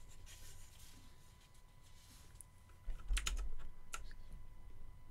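Faint clicks of computer keys being pressed: a single click a little past two seconds, a cluster about three seconds in with a low bump, and another click near four seconds.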